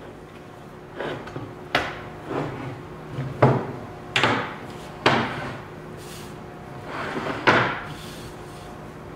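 Solid walnut folding shelf being collapsed flat by hand: its wooden frames and slats knock and clack together about seven times, with short sliding rubs between the knocks. The loudest knock comes near the end.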